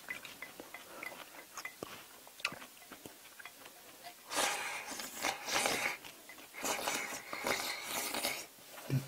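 Close-up eating sounds of jjajang noodles being eaten with chopsticks: small clicks and soft chewing, then two longer noisy stretches of eating, about four and about six and a half seconds in.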